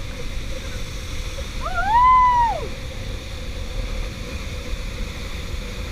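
Steady rushing of a waterfall. About two seconds in, a person gives one long whoop that rises, holds and falls.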